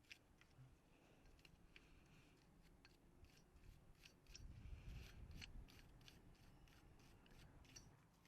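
Faint, irregular clicks and short scrapes of small hard objects, with a soft low rumble about four to five seconds in.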